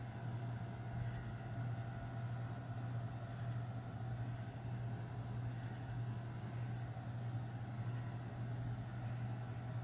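A steady low hum with a faint hiss beneath it, even and unchanging.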